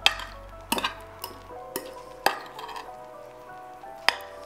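Roasted green beans, carrots and onions being tossed in a glass baking dish, with about five sharp clinks of a utensil against the glass. Soft background music with held notes runs underneath.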